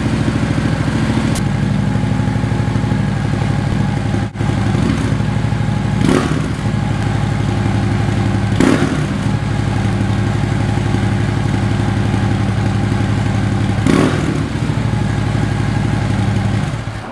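2011 Harley-Davidson Street Glide's air-cooled V-twin idling through Fuel Moto Jackpot 4-inch slash-up slip-on mufflers, a Stage 1 setup with a Fuel Moto air cleaner on the stock headpipe. The throttle is blipped briefly three times, about six, nine and fourteen seconds in.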